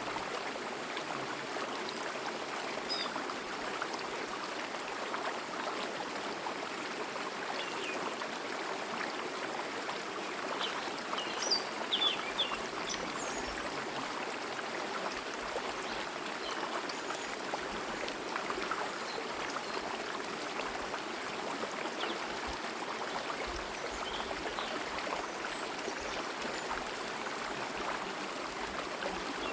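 Forest stream running steadily, with birds chirping briefly now and then, most clustered about halfway through.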